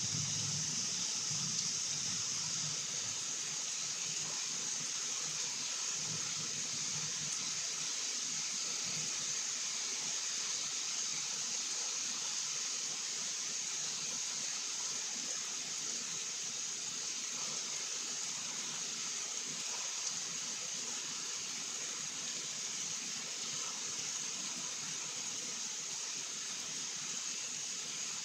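Steady rain falling at night, an even hiss with no thunder.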